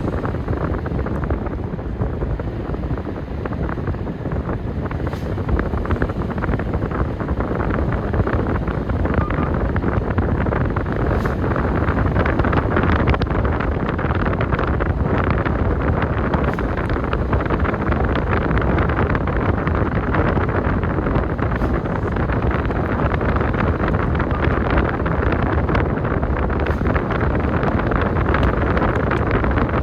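Steady wind noise rushing over the microphone, together with the road noise of a moving car.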